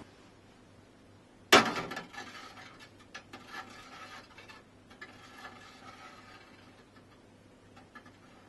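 A sharp knock about a second and a half in, followed by light clicking and rubbing, as of objects being handled on a surface.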